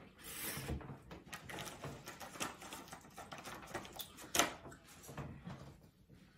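Small handling noises of eating at a table: scattered light clicks and taps from a fork on a paper plate, with paper napkin handling. There is one sharper click about four and a half seconds in.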